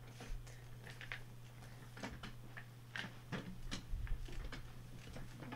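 Scattered clicks, taps and light knocks of equipment being handled and set up, over a steady low hum.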